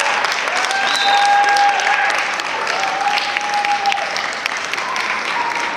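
Audience applauding, with two long held whoops over the clapping, one about half a second in and one near the middle.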